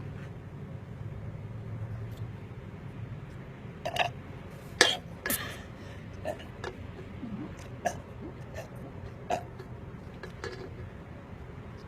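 A woman burping repeatedly: a string of short, separate burps about a second apart, beginning a few seconds in, with the loudest one early in the run.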